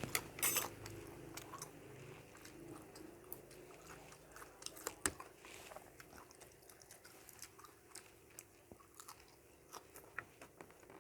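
A person chewing food close to the microphone: faint, scattered wet clicks and crunches of biting and chewing, busiest in the first second.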